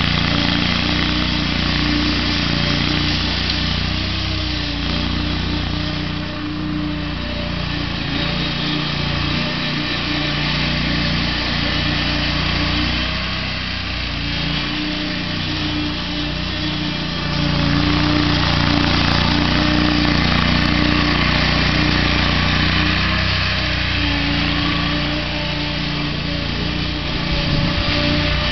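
Toro zero-turn riding mower's engine running steadily under load as it tows a pull-behind lawn dethatcher, growing fainter and louder again as the mower moves away and comes back, loudest from about two-thirds of the way in.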